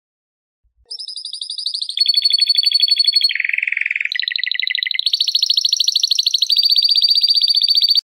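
Domestic canary singing a string of rapid trills that starts about a second in. Each trill is held for about a second before it jumps to a new pitch, with a lower, buzzier roll near the middle.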